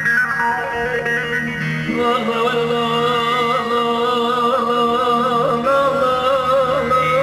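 A man sings a Turkish folk song over instrumental accompaniment. His long, wavering, ornamented vocal line comes in about two seconds in, after a short instrumental passage.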